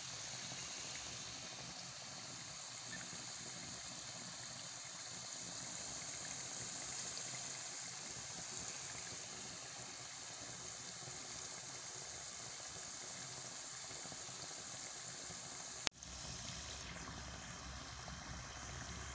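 Almond briouats (filo pastry triangles) deep-frying in oil over low heat: a steady, even sizzle of small bubbles. There is a brief break with a click about sixteen seconds in.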